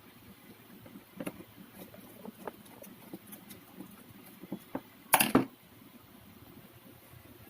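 Scattered light clicks and taps of small objects being handled, with one louder clatter about five seconds in that lasts about half a second.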